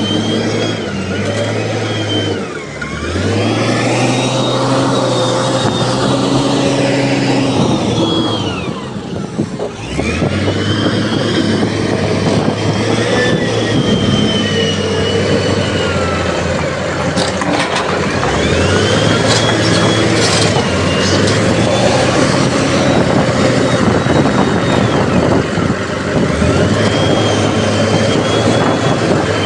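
Heavy diesel earthmoving machine working, its engine revving up, holding under load and dropping back about four times, with a high whine rising and falling along with each rev.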